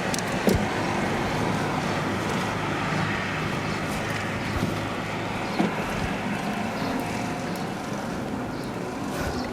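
Road traffic at a rural highway intersection: a steady hum of vehicle engines and road noise, with a couple of sharp knocks, about half a second in and past the middle.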